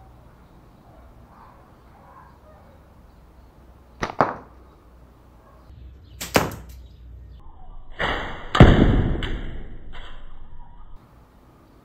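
Slingshot shots at a hanging bottle-cap target: sharp cracks of the rubber bands releasing and balls striking, a doubled one about four seconds in and another about two seconds later. Near the end comes a louder event with a hard crack that lasts about three seconds.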